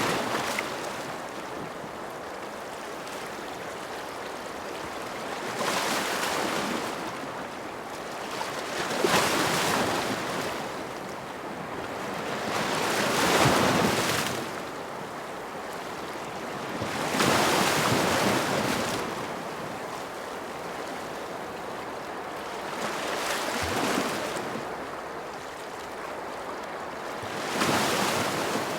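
Ocean waves breaking on a shore. A wave surges in and fades about every four seconds, over a steady hiss of surf.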